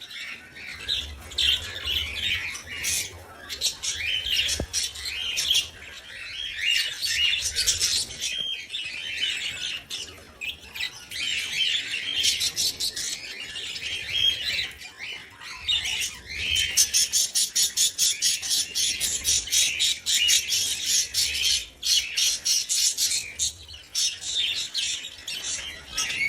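Budgerigar chattering, a steady stream of short high chirps and squawks. The chirps come thickest and fastest a little past the middle.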